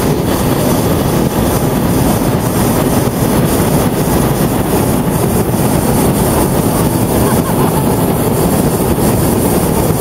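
Hot-air balloon's propane burner firing in one long, steady, loud roar. It is heating the air in the envelope.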